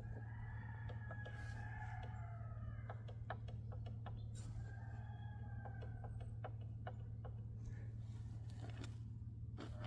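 BMW 325i's 2.5-litre engine running with a steady low hum. A wavering squeal comes in the first few seconds and again midway, with irregular clicking through the middle: the noise being checked as the sign of a failing water pump.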